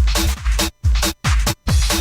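Electronic dance music from a DJ mix: a four-on-the-floor kick drum, a little over two beats a second, with the track chopped into short bursts and gaps of silence between the beats. Near the end the chopping stops and the music runs on unbroken.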